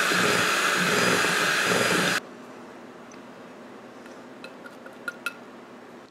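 Hamilton Beach handheld electric mixer running on a low setting, its beaters churning flour into a butter-and-sugar cookie dough in a glass bowl, then switched off suddenly about two seconds in. After that come a few light clinks against the glass bowl.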